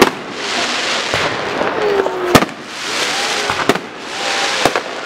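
Fireworks: five sharp aerial-shell bangs, about one a second, each followed by a dense hissing crackle as the stars burn.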